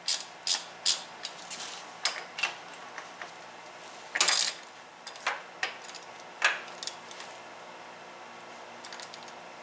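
Metal hand tools clinking and clanking against a tractor engine's fittings as a socket wrench is worked around the oil cooler and filter: a dozen or so separate sharp clicks and knocks, the longest about four seconds in, thinning out in the second half.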